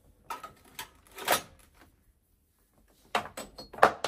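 Handling clatter as a steam iron is set into a wall-mounted wire holder: a few light knocks in the first second and a half, then a quicker run of sharp clicks and knocks near the end, the last of them the loudest.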